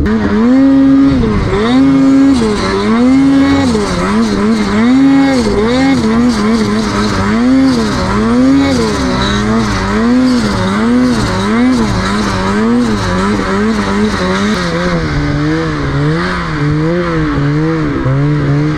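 Snowmobile engine revving up and down over and over, its pitch rising and falling about once a second with the throttle. About three quarters of the way through, the engine settles to a lower pitch while the rises and falls go on.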